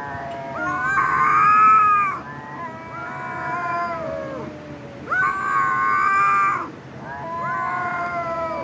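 Two kittens yowling at each other in a fighting standoff: long drawn-out wails that overlap at two pitches. The two loudest, highest yowls come about a second in and about five seconds in.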